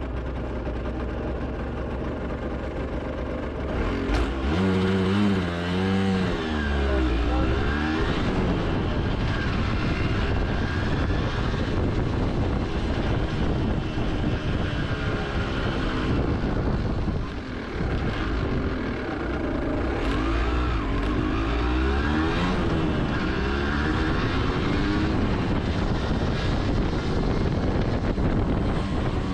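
Yamaha TDR 125's two-stroke single-cylinder engine idling, then pulling away about four seconds in and accelerating through the gears, its pitch rising and dropping back at each shift. It eases off briefly past the middle, then accelerates through the gears again.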